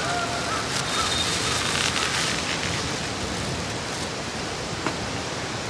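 Steady rushing outdoor noise, with a few faint high chirps in the first second.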